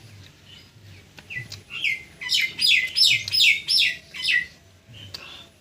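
A bird calling: a quick run of about nine sharp notes, each falling in pitch, lasting about three seconds.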